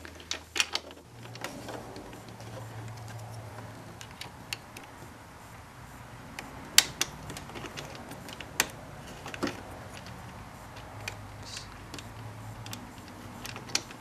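Scattered light clicks and taps of plastic and metal parts, a dashboard power outlet and its retaining nut, being handled and fitted together by hand, a few sharper clicks standing out in the middle, over a faint steady low hum.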